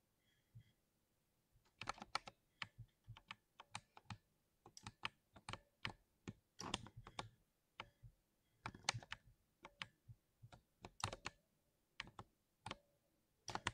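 Typing on a mechanical keyboard: irregular runs of sharp key clacks, starting about two seconds in, with short pauses between bursts.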